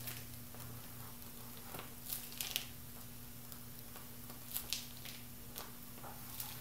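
Faint crinkling and squishing of a plastic pastry bag being squeezed to pipe whipped cream icing, a few soft rustles over a steady low hum.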